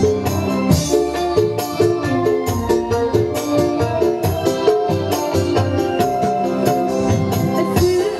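Live band music: an electronic keyboard plays a melody over a steady drum beat, an instrumental passage without singing.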